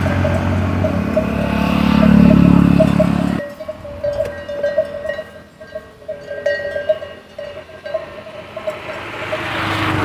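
A cow's neck bell clanking repeatedly and unevenly. A motor vehicle's engine runs loudly over it at first, then cuts off suddenly a little over three seconds in. Another vehicle's noise swells near the end.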